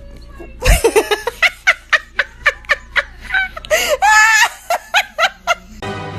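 A person laughing in short repeated bursts, with one longer drawn-out laugh about four seconds in. Music starts just before the end.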